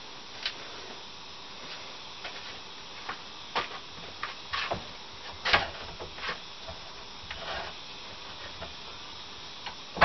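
Irregular light clicks and knocks of metal parts and a hand tool being handled at a bench vise while a hydraulic hose fitting is set up, the loudest knock about five and a half seconds in.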